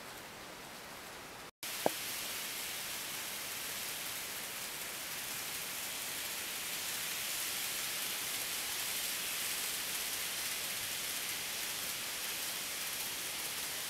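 N-gauge model trains running on the track: a steady hiss-like rolling and motor whir. It breaks off briefly, and a single sharp click comes about two seconds in.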